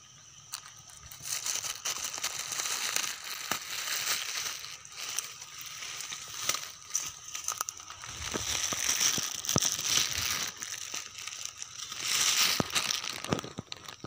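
Footsteps crunching through dry leaf litter, twigs and dead grass stalks, with dry stems rustling and snapping. A busy crackling starts about a second in, comes and goes, and is loudest a little past the middle and again near the end.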